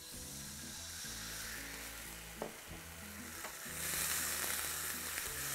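White wine sizzling as it hits hot oil with frying ginger and garlic in a pan, stirred with a wooden spoon; the sizzle grows louder about four seconds in. Faint background music underneath.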